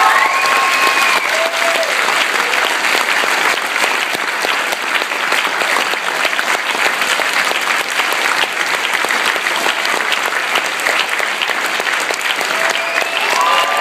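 Audience clapping steadily. A few pitched voices, like shouts or whoops, rise over the clapping near the start and again near the end.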